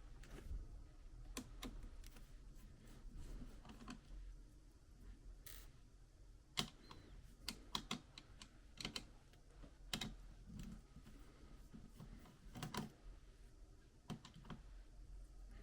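Light, scattered clicks and taps of a small screwdriver and fingers working screws out of a laptop's internals, with a few louder taps in the middle.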